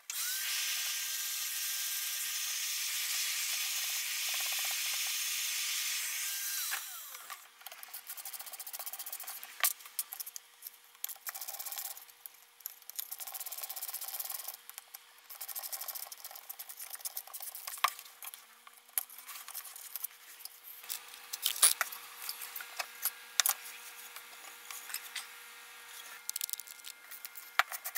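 A steady hiss for about the first seven seconds that dies away, then scattered small clicks, scrapes and rubbing from hand work with a screwdriver on the electric planer's switch housing and cord clamp, over a faint steady hum.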